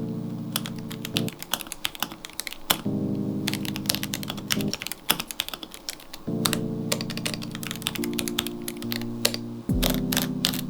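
Typing on a My Neighbour MYNK65 mechanical keyboard (gasket-mounted, acrylic case, polycarbonate plate, PBT keycaps): a fast, uneven run of key clacks with short pauses between bursts. Background music of held chords plays underneath.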